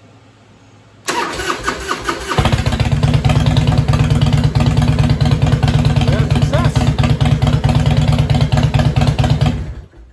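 2005 Harley-Davidson Fat Boy's air-cooled V-twin cranked on the electric starter about a second in, catching after about a second of cranking and then running loud and steady. It starts on a freshly fitted battery after the old one had died. The sound stops just before the end.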